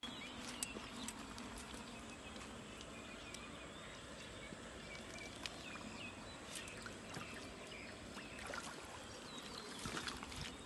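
Faint splashing and water sloshing with scattered small knocks as a long-handled landing net is worked through the pond water around a hooked snakehead, over a quiet outdoor background with a few short high chirps.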